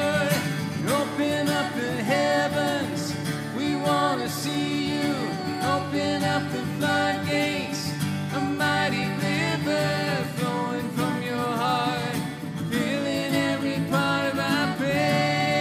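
Live worship song: two acoustic guitars playing steady chords under singing voices.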